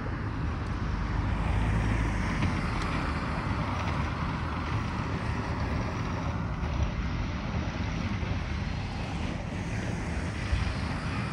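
Road traffic noise from cars on the street alongside: a steady rush with a low rumble that swells a little about one to two seconds in.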